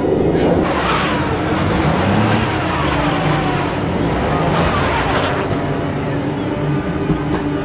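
A car engine revving hard, its pitch rising and falling, while a tyre spins on dirt and grass with a rushing hiss that swells and fades.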